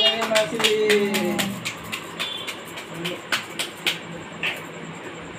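Hand claps, a few a second and uneven, stopping about four seconds in, with a voice trailing off over the first second and a half.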